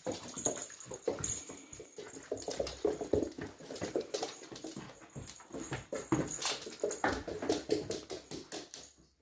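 A 3-month-old Springador puppy playing rough, making short dog noises over and over, with many quick clicks and scrabbles of its claws on a laminate floor. It goes quiet just before the end.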